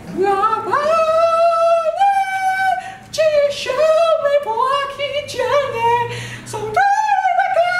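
A man singing unaccompanied in a loud, high-pitched voice. He holds long notes that step up and down between pitches, with brief breaks for breath.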